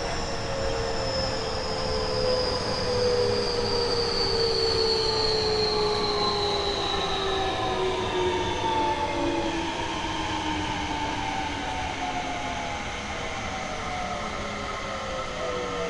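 Seibu 30000 series train, later batch with Hitachi two-level IGBT VVVF inverter, running on board with the motor whine falling steadily in pitch as the train slows on its approach to a station, over a constant low rumble of the wheels.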